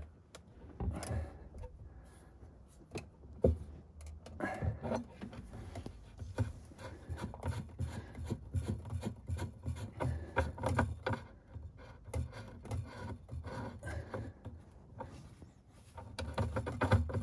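Brass gas hose connector being unscrewed from a campervan gas regulator: scattered small clicks, scrapes and rubbing of the metal fitting, with dull bumps as the hose and regulator are handled.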